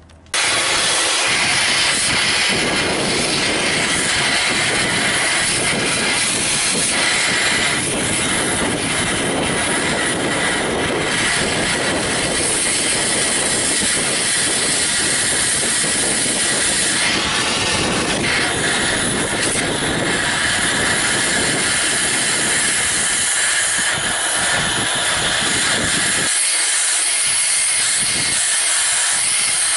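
Oxy-fuel cutting torch burning out a steel leaf spring shackle bushing: a loud, steady hissing rush of flame and cutting oxygen, starting abruptly. Near the end the deeper part of the rush drops away while the hiss carries on.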